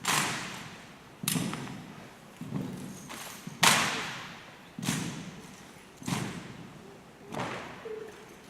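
Sharp knocks of drill rifles being slapped and struck down in a precision rifle drill, about one a second, each ringing on after the hit. The loudest comes about three and a half seconds in.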